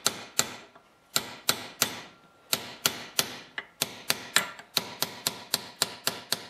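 Hammer tapping a pin punch to seat a new Welch plug in a Tecumseh carburetor: a steady run of light metal taps, about three a second, with two short pauses. The taps flatten the plug so that it expands and tightens itself in its hole.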